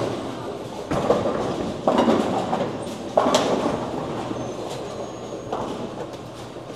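Bowling alley sound: a bowling ball rumbling down the lane and crashing into the pins about three seconds in. Several sudden pin crashes, from this and other lanes, sound over a steady rolling rumble.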